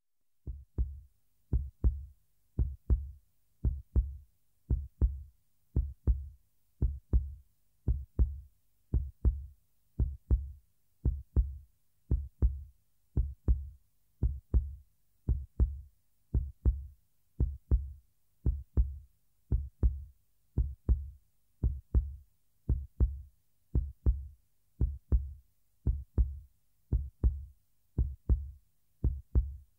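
Heartbeat sound effect: steady paired low thumps, lub-dub, about one pair a second, with silence between the beats.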